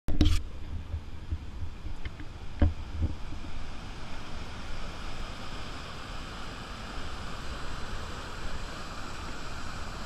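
River rapids rushing through a rock canyon as a steady hiss, with wind rumbling on the microphone. A few sharp knocks at the start and about two and a half to three seconds in.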